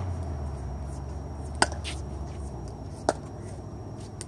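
Pickleball paddles hitting a plastic pickleball: two sharp pocks about a second and a half apart.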